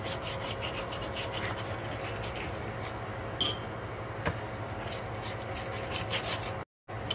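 Silicone pastry brush rubbing chicken broth onto a dry saj flatbread on a silicone baking mat, softening it so it can be rolled without cracking: soft repeated brushing strokes over a steady low hum, with a short louder sound about three and a half seconds in.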